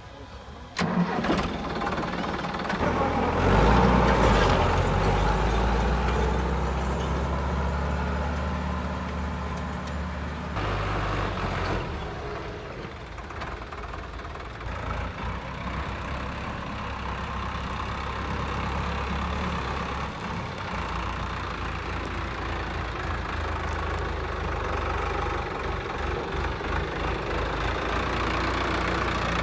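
An engine starting about a second in, getting louder and revving a couple of seconds later, then running steadily with a few shifts in speed.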